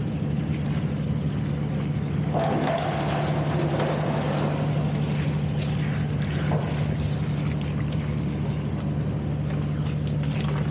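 Stationary engine running steadily with an even low hum, driving the opal-washing agitator and its water pump. A rougher, clattering noise joins in about two seconds in.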